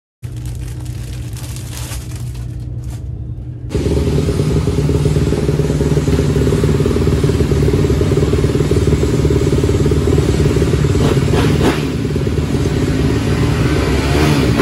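Motocross bike engine running steadily, quieter at first and then much louder from about four seconds in, with the pitch wavering slightly near the end.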